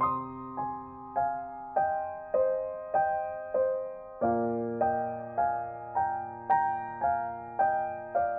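Slow, gentle background piano music: single notes struck about every half second, each fading away, over held bass notes.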